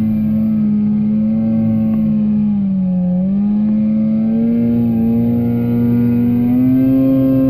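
Two-stroke mountain snowmobile engine running hard while the sled rides through deep snow. Its pitch holds steady, dips briefly about three seconds in, then climbs again toward the end.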